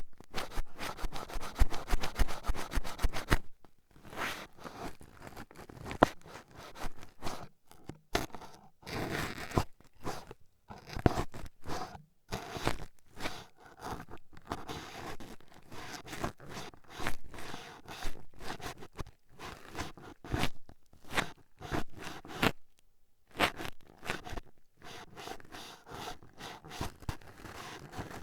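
Toothpicks jabbing and scraping against an ear microphone, close and scratchy. A rapid flurry of ticks fills the first three seconds or so, then come slower, uneven pokes and scrapes with short pauses.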